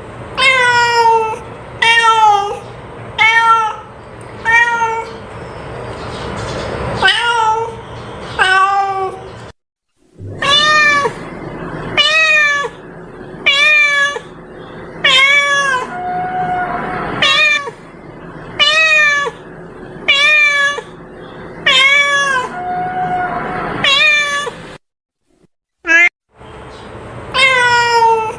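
Cat meowing over and over, a short call every second or so, each rising then falling in pitch, played as a lure to call cats. The run breaks off into silence twice, briefly.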